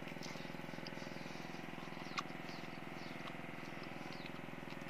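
A person biting into and chewing a ripe, juicy peach: small wet smacking clicks, one sharper about two seconds in, over a steady low hum.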